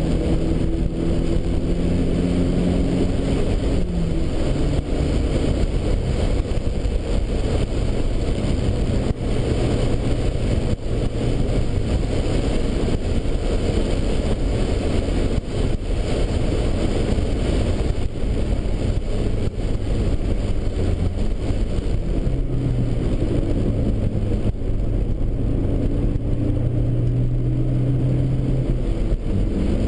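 Datsun Bluebird Turbo's turbocharged engine at racing speed, heard from inside the cabin with road and wind noise. The engine note drops about three seconds in as the driver lifts off, then rises again under acceleration near the end.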